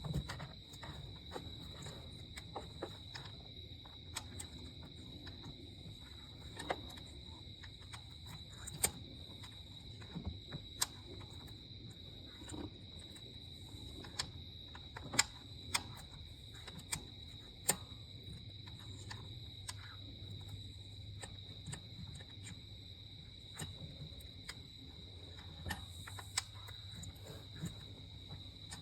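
Hand tools and removed spark plugs being handled: sporadic light clicks and taps, roughly one every second or two, over a steady high-pitched whine and a low hum.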